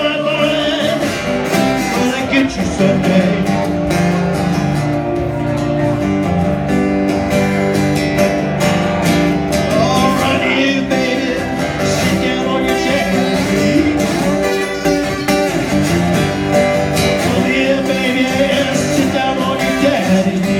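Acoustic guitar playing a bottleneck slide blues, plucked and strummed steadily.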